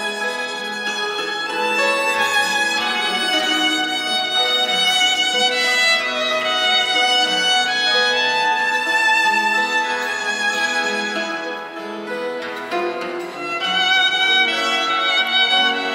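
Live acoustic trio: a violin bowing a sustained melody over a Portuguese guitar and a classical guitar plucking a steady rhythmic accompaniment.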